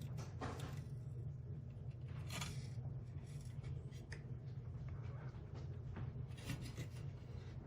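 Light handling noise as a hard drive and its plastic enclosure are turned and moved by hand: soft rubs and small clicks, with two brief louder rustles, over a steady low hum.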